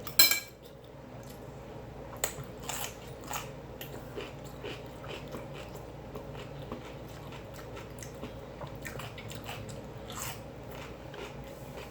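A person eating close to the microphone: one loud bite just after the start, then steady chewing with scattered small smacks and clicks.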